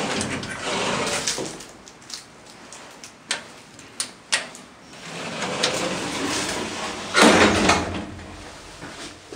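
OTIS F2000 elevator's sliding car doors running, with a few sharp clicks of the cab push buttons being pressed about three to four and a half seconds in. The doors then slide shut, with the loudest burst of noise a little after seven seconds in.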